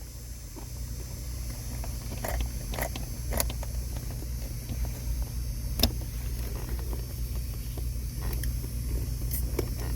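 A car engine idling with a steady low rumble, with scattered light clicks and knocks over it and one sharper click about six seconds in.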